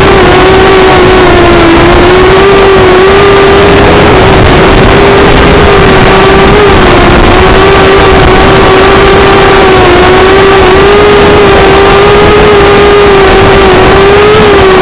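Walkera Rodeo 150 racing quadcopter's motors whining at a nearly steady pitch under loud hiss, the pitch wavering a little and rising briefly near the end before dropping.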